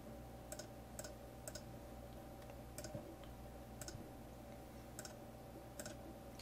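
Computer mouse clicking: about seven single, faint clicks at irregular intervals over a steady hum.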